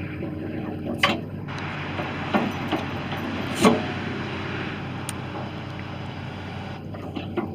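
Hitachi ZX160 crawler excavator's Isuzu diesel engine running steadily. A broader rushing noise swells for a few seconds in the middle, and there are two sharp knocks, about one and three and a half seconds in.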